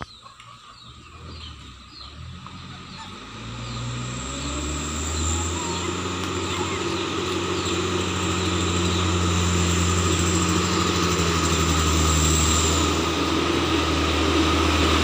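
Mitsubishi Fuso Canter light truck's diesel engine drawing steadily nearer, a deep even drone that grows louder from about four seconds in. Faint bird chirps can be heard in the first few seconds.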